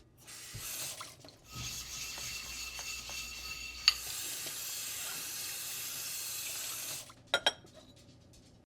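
Water running from a tap into a sink: a short run, then a longer steady run that stops about seven seconds in, followed by a couple of light knocks.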